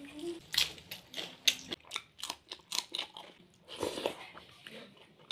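Close-up eating sounds of instant noodles being chewed: irregular wet clicks and smacks of the mouth, with a longer sucking sound about four seconds in as noodles are drawn in.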